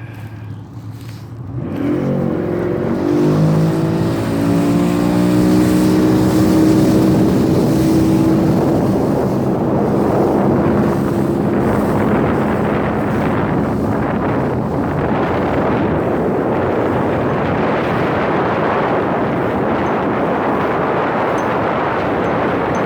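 Motorboat engine throttled up hard about two seconds in, its pitch climbing as the boat gets going, then running steadily at speed under a broad rush of water and wind.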